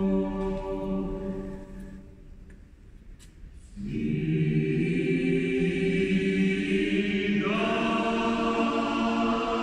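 Mixed choir singing a Georgian polyphonic hymn a cappella in close harmony, in a resonant stone cathedral chapel. A held chord dies away about two seconds in, and after a short pause the voices come back in together on a new chord; the harmony shifts again near the end.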